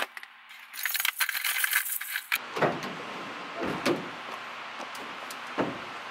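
Lures rattling and clattering inside a plastic tackle box as it is handled. Then, after a cut, a steady outdoor hiss with a few dull thumps at a pickup truck's open tailgate as someone climbs up onto it.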